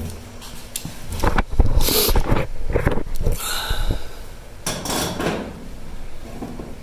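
Scattered clicks, knocks and short rattles of Cleco pliers and Cleco sheet-metal fasteners being handled against a steel body panel.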